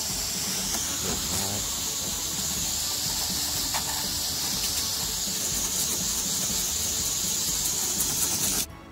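Garden hose spray nozzle running full, a steady high-pitched hiss of rinse water washing soap off an RV roof. The spray shuts off abruptly near the end.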